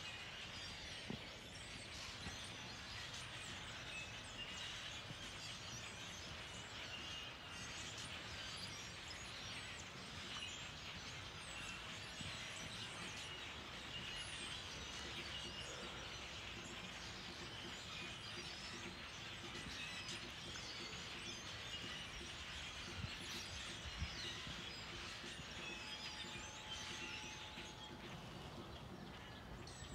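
Steady low background rumble with small birds chirping over it.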